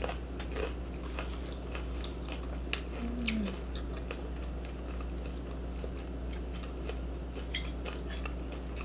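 Close-miked chewing of food, with many small wet mouth clicks and smacks, and a brief low hum about three seconds in.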